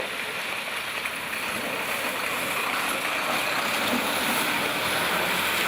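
Traffic on a wet road: a steady hiss of tyres on the wet surface, slowly growing louder as a vehicle approaches.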